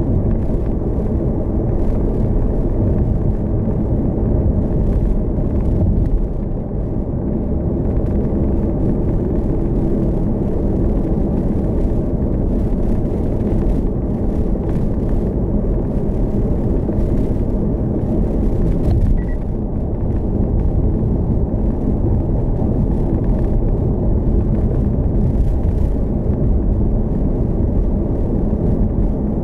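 Hyundai Kona Hybrid driving along the road: a steady low rumble of tyre and road noise, easing slightly for a moment about six seconds in.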